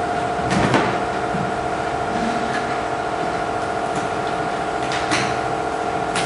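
Knocks and clicks of a folding boat's hull panels and gunwale hook being pressed and latched by hand: a louder knock about half a second in, then two sharp clicks near the end, over a steady hum.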